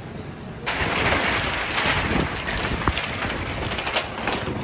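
Steady noisy hubbub of a busy train station, with a few scattered knocks, cutting in abruptly about a second in.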